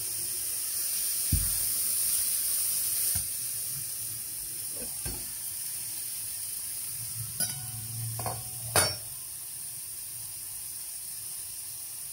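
Food sizzling steadily in non-stick frying pans, with a few short knocks and clinks of a metal pan lid and a spatula against the pans, the loudest near nine seconds in.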